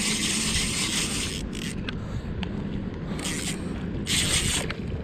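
Spinning fishing reel clicking and whirring in several bursts while a snagged mullet is played on the line, the longest burst at the start and shorter ones about two, three and four seconds in.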